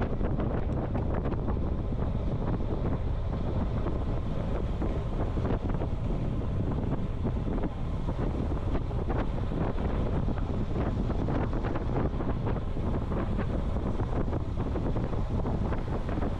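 Wind buffeting the microphone of a camera riding on a moving road bicycle: a steady, heavy low rumble with faint scattered clicks.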